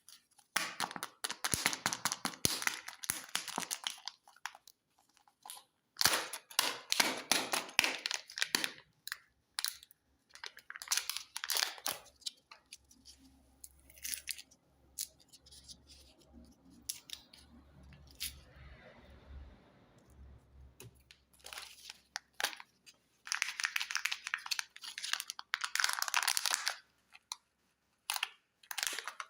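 Kinder Joy egg foil wrappers being torn open and crinkled, in repeated bursts of rustling and tearing with a quieter stretch in the middle.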